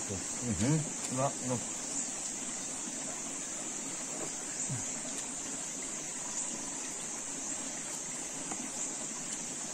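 A steady, high-pitched drone of forest insects, with a few brief low voices in the first second and a half.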